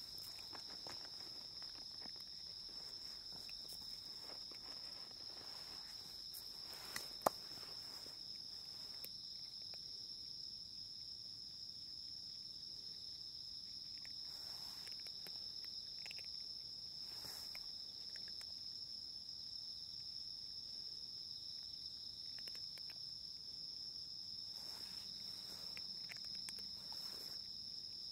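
A steady, high insect chirring with no breaks. There is one sharp click about seven seconds in, and a few faint rustles now and then.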